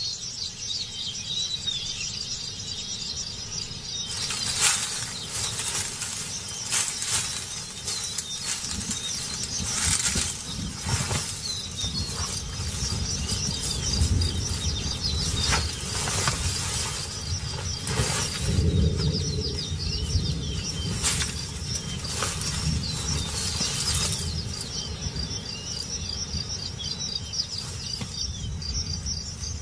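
Wild outdoor ambience: a steady high insect drone with many short bird chirps over it, broken by scattered sharp rustles and knocks.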